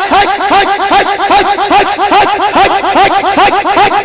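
Men's voices chanting a short syllable in unison, repeated quickly and steadily at about five to six a second.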